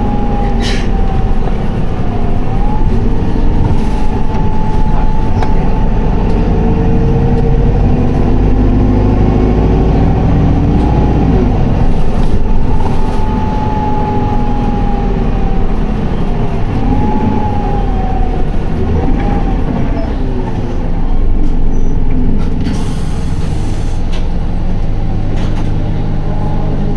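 Isuzu Erga city bus under way, heard from inside the cabin: its diesel engine held in fourth gear in power mode, with steady road rumble and a wavering whine riding above it. The uploader notes a slight abnormal noise on this bus. A short hiss comes about two-thirds of the way through.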